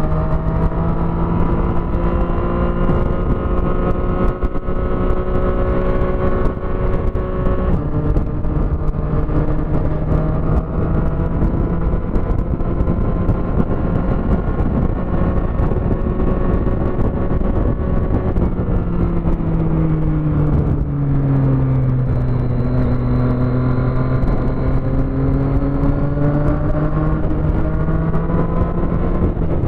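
Motorcycle engine cruising at highway speed over a steady hiss of wind and wet road. About two-thirds of the way through the engine note falls as the bike slows, then climbs gradually again as it speeds back up.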